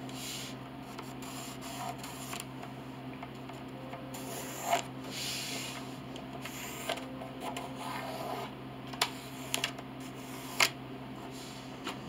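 Pencil scratching marking lines on wood and wooden pieces being rubbed and shifted on a workbench, with a few sharp knocks in the second half, over a steady low hum.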